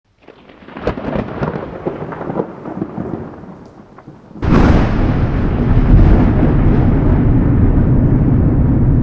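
Thunder, as a sound effect: a crackling, rumbling build for about four seconds, then a sudden loud thunderclap about four and a half seconds in that rolls on as a heavy low rumble.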